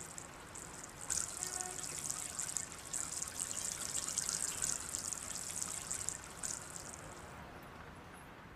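Water trickling with an uneven hiss. It grows louder about a second in and fades out near the end.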